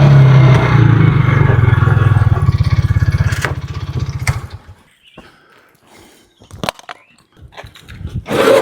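An engine running and then shut off: its firing slows into separate pulses and dies away about four to five seconds in. A few faint knocks and scrapes follow.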